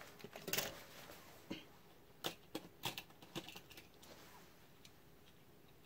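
Die-cast toy cars clicking and rattling against one another as they are sorted through in a carry case: a string of light, sharp clicks over the first four seconds.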